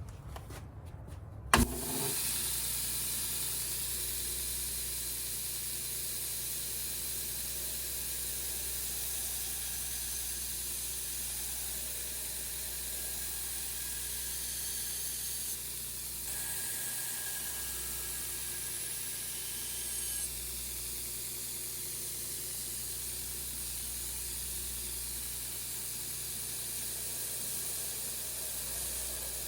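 Belt grinder with a 120-grit belt grinding a steel knife blade's bevel and spine: a steady hiss over a low motor hum, starting abruptly about a second and a half in.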